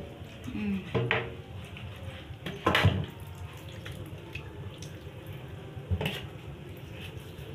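Tap water running into a kitchen sink as pork is handled in it, with a few sharp knocks and clatters, the loudest about three seconds in.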